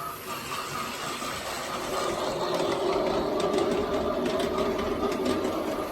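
A battery-powered Plarail C62 toy steam locomotive running on plastic track, its small electric motor and gearing whirring steadily with fast faint ticking from the wheels.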